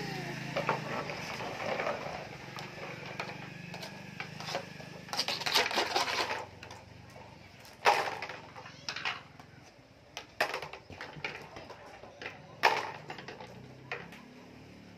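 Plastic toy trucks and glass marbles being handled on a wooden floor: scattered clicks, knocks and short rattles, with a few sharper knocks.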